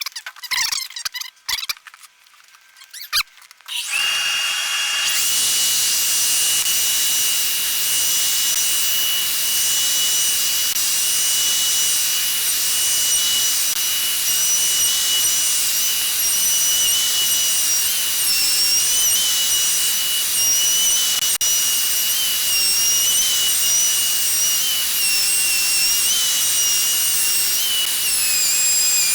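A router on a slab flattening mill starts up about four seconds in and runs with a loud, steady high whine and hiss, its pitch dipping and wavering as the bit cuts across a burr oak slab.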